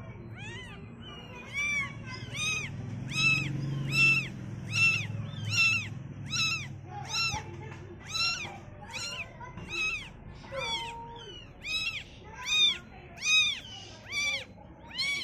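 Newborn calico kitten, eyes still closed, mewing over and over: about twenty short, high-pitched cries, each rising and then falling in pitch, a little more than one a second.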